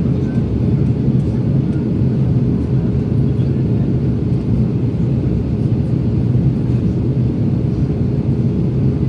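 Airbus A321 on approach: a steady, even drone of engines and airflow, with a constant low hum through it.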